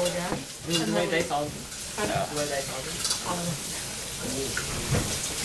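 Indistinct voices over a steady hiss, with a few light clicks.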